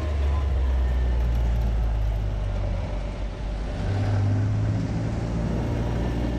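Low engine drone and road noise of a car driving, heard from inside the cabin. The drone swells as it pulls away, and the engine note changes about four seconds in.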